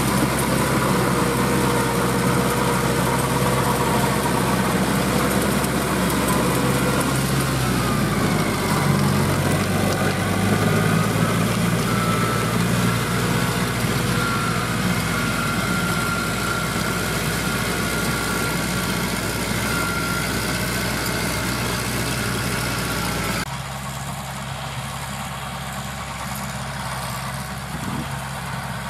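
Four-cylinder Perkins diesel of a Landini tractor running steadily under load while it pulls a rotary tiller through dry soil. The engine pitch dips and recovers about a third of the way in. Near the end the sound steps down to a quieter level.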